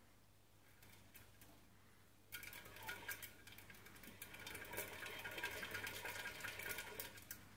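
Plastic rat exercise wheel spinning under a running rat, whirring and rattling with rapid clicks. Faint at first, it gets suddenly louder about two seconds in and drops away just before the end.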